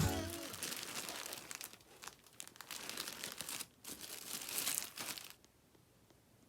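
Crinkling and rustling of a handled crinkly material, with many small clicks, stopping suddenly about five seconds in.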